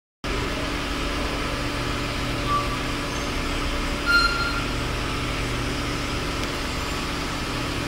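Steady machine hum and hiss of a ventilation fan or similar running machinery, starting abruptly after a brief silence. Two short high beeps sound about two and a half and about four seconds in.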